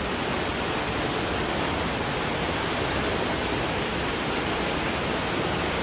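Fast-flowing, swollen river churning and rushing beneath a bridge: a steady rush of turbulent water.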